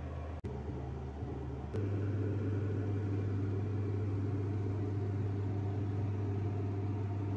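Steady low mechanical hum, like a fan or appliance running, cutting out for an instant about half a second in and turning louder and fuller at about two seconds.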